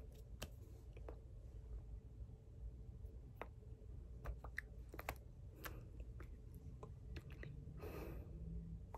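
Faint scattered clicks and lip smacks from a person signing and mouthing words, over a low steady hum, with a short breath near the end.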